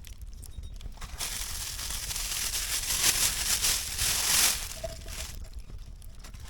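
Irregular crunching and rustling, loudest through the middle and dying down near the end.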